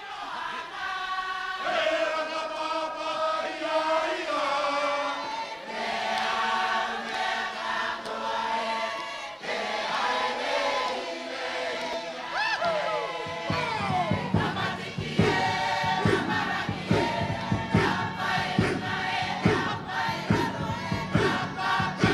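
A large mixed choir singing a hymn in parts, with voices sliding in pitch about halfway through. After that a steady beat of about two a second joins the singing.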